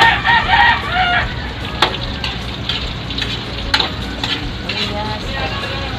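Garlic frying in cooking oil in a steel wok, with a steady sizzle while a metal spatula stirs it and knocks against the wok a couple of times. A brief, high-pitched call sounds in the background during the first second.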